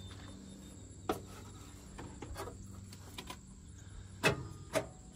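A handful of short, light clicks and knocks over a quiet background, the two loudest near the end.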